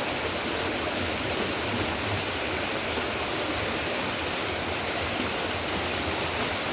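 Heavy rain and rushing rainwater, a steady even rush with no breaks.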